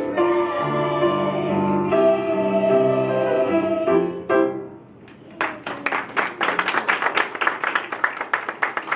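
A small mixed ensemble of young voices singing in harmony, holding out a last chord that ends about four and a half seconds in. After a brief pause, applause breaks out and carries on.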